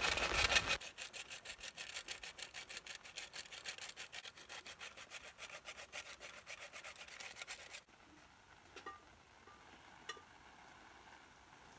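Whole nutmeg being grated on a metal grater: a fast, even run of rasping strokes, louder in the first second, that stops abruptly about eight seconds in.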